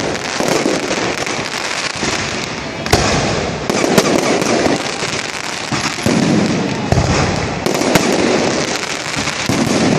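Consumer fireworks going off: a continuous hissing, crackling spray broken by sharp pops and bangs every second or so.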